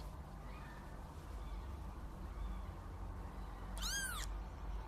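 A very young kitten gives one short, high-pitched mew about four seconds in, its pitch rising and then falling, over a low steady rumble.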